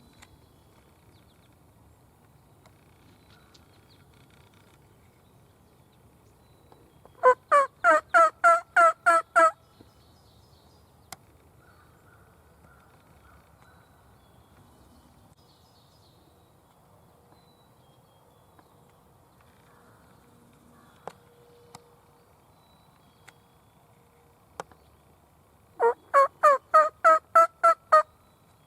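Two loud runs of turkey yelping, eight or nine notes each at about four a second. The second run comes near the end, with a few faint clicks in between.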